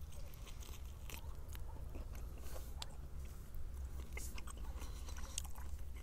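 A person biting and chewing a chunk of fire-grilled meat: faint, irregular clicks and smacks.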